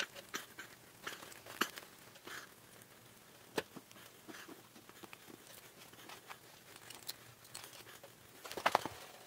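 Squirrel skin being pulled off the carcass by hand: faint, scattered tearing and crackling, with a short, louder run of crackles near the end.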